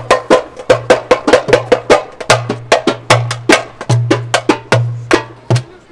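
Percussion-driven music: quick, sharp drum strikes, about four a second, over a low held bass note, breaking off near the end.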